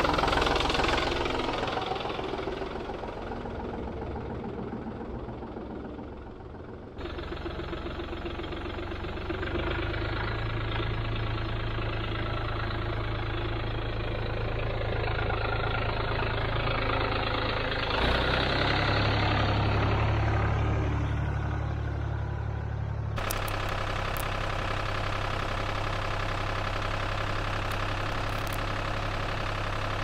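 Farm tractor engine running steadily, its low hum shifting abruptly in pitch and loudness a few times.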